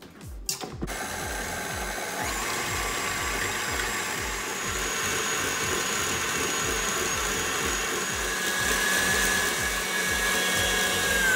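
KitchenAid Ultra Power stand mixer starting up about a second in and running steadily with a high whine as its wire whisk whips double cream toward stiff peaks. Right at the end the whine starts to fall as the motor is switched off.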